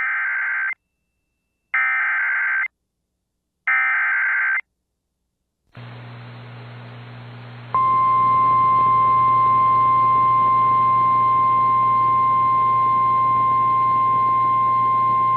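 Three SAME header bursts, the raspy digital data tones that encode an Emergency Alert System severe thunderstorm warning. Each lasts about a second, with short gaps between them. Then comes weather-radio static with a low hum, and from about halfway a single steady NOAA Weather Radio warning alarm tone begins, signalling that a voice warning message follows.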